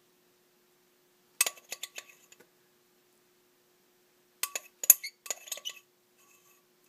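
A utensil clinking and tapping against a soap-making container in two quick flurries of sharp, ringing knocks, the second a little after four seconds in, over a faint steady hum.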